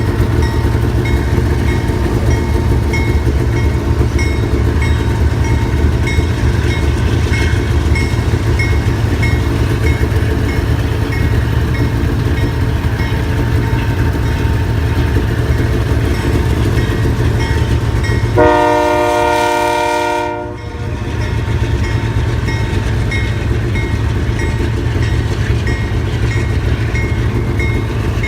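Vintage two-stroke snowmobile running steadily under way, a loud rumble with a regular clatter. About two-thirds of the way through, the rumble gives way for a couple of seconds to a steady high-pitched tone, then the level dips briefly before the running sound returns.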